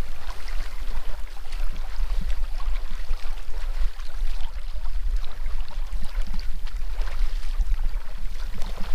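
Low, gusting rumble of wind buffeting the microphone, with faint light clicks scattered over it.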